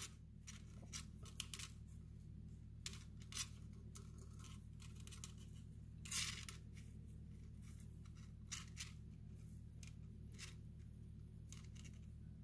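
Faint, scattered scratchy rustles and light clicks of fishing line rubbing between fingers as an overhand knot is worked down a Dacron-sheathed lead core line. The strongest scrape comes about six seconds in, over a low steady hum.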